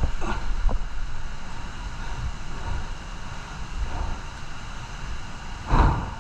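Off-road motorcycle running over rough ground, a steady noisy drone broken by a few short knocks, with a louder thump near the end.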